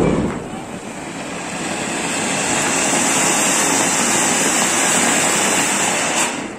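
Ground fountain firework (an anar, or flowerpot) spraying sparks with a loud, steady hiss. It starts suddenly, swells over the first two seconds, and dies away near the end.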